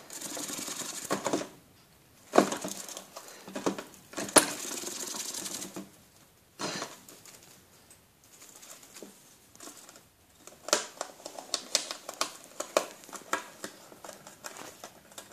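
A gerbil gnawing and tearing cardboard: rapid, crisp clicking and ripping in spurts of a few seconds, with short pauses between.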